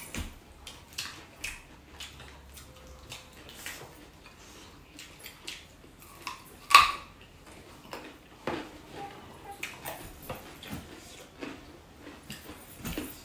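Close-up eating sounds: chewing and lip-smacking, with scattered light clicks of dishes and cutlery on the table. One much louder, sharp click about seven seconds in.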